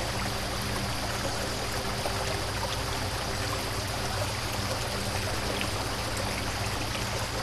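Steady rush of running floodwater, with a faint steady low hum beneath it.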